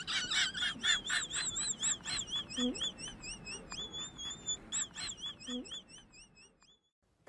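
A rapid series of short, high chirps, about four a second, fading out and stopping near the end.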